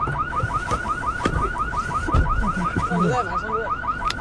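Car alarm going off: a rapid warbling chirp repeating about seven times a second, with a couple of knocks and a faint voice underneath.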